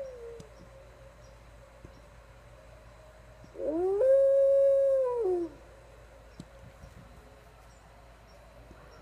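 Norwegian Elkhound puppy howling: the tail of one howl fades in the first moment, then about three and a half seconds in comes a single loud howl about two seconds long that rises, holds one steady pitch and drops away at the end.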